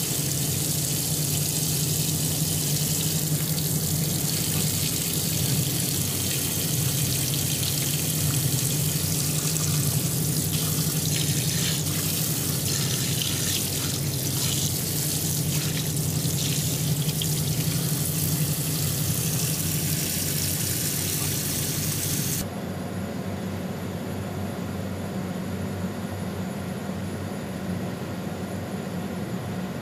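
CNC machining center face-milling aluminum under flood coolant: a steady rush of coolant spray over a low machine hum. About 22 s in the rush cuts off suddenly, leaving a quieter steady machine hum.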